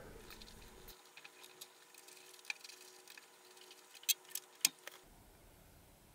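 A few faint, sharp metallic clicks and taps as a small three-jaw lathe chuck is handled and taken off the spindle: one click about halfway through, then three more in quick succession a little later.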